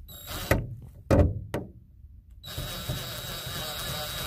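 Power drill with an extension bit driving a screw into a plastic dome light housing. The motor runs briefly at the start, there are a few sharp knocks, and then it runs steadily for nearly two seconds near the end.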